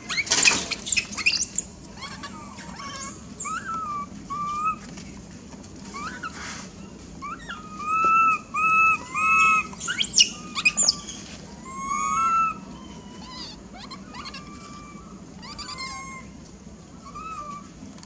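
Young macaques calling: shrill squealing screams in the first couple of seconds, then a run of short, arching coo-like calls around the middle, with fainter scattered squeaks toward the end.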